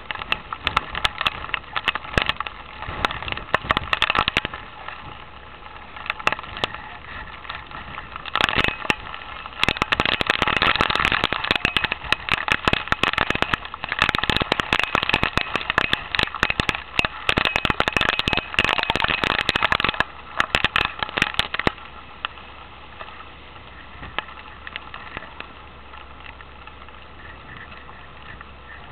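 Hail shower: a dense crackle of hailstones striking close to the microphone, heaviest through the middle and easing off about two-thirds of the way through, leaving a steady hiss.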